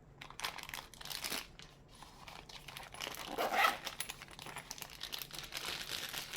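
Packaging crinkling and rustling in irregular bursts as it is handled and unwrapped to get at a folding knife, loudest about three and a half seconds in.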